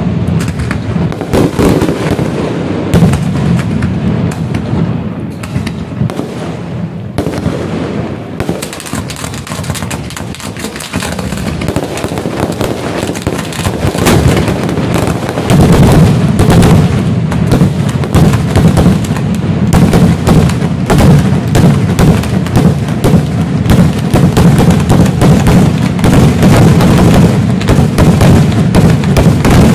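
Fireworks display: a rapid, unbroken barrage of bangs and crackles from shells and firecrackers. It grows louder and denser about halfway through.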